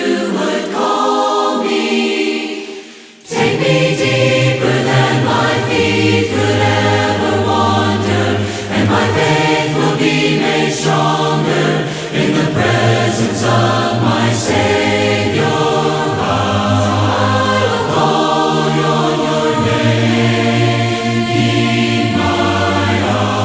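Choir of voices singing a worship song. The singing dies away briefly about three seconds in, then comes back fuller, with strong low bass notes underneath.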